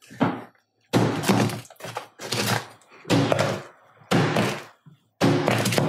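A 3-pound hammer striking the already shattered iPhone XS Max on a hard surface, a series of heavy thunks about one a second.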